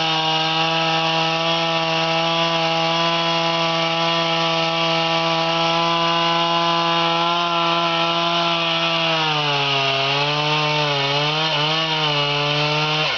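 Two-stroke chainsaw running at full throttle in a felling cut through an aspen trunk. About nine seconds in its pitch begins to dip and waver as the chain bogs in the cut, and at the end the engine note drops off suddenly.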